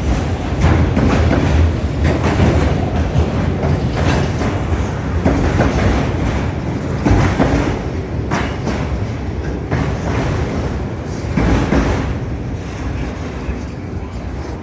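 Freight train of autorack cars rolling past, its wheels clacking irregularly over the rail joints under a steady rumble, growing a little quieter near the end.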